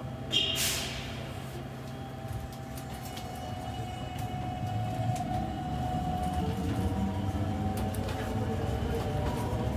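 Bus pulling away: a short sharp hiss of compressed air near the start, then a steady rumble that grows louder, with a faint rising motor whine as it gathers speed.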